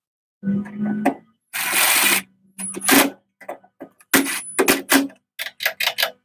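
Metal clicks, clinks and short scrapes of a hand driver and the choke linkage parts as the choke assembly is fastened onto a Tecumseh carburetor, with a longer rasp about a second and a half in and a run of quick clicks near the end.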